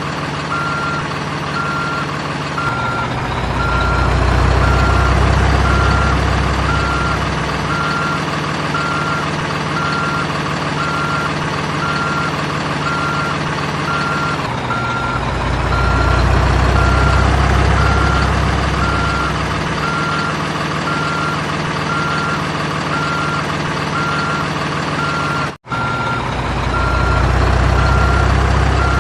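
Simulated heavy-vehicle sound effect: a diesel engine drone with a reversing beeper beeping steadily, under two beeps a second. The engine's low rumble swells three times, and the sound drops out for an instant a few seconds before the end.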